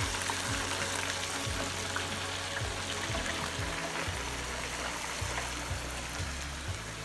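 Hot oil in a deep fryer sizzling with a steady crackling hiss, under background music with a low bass line.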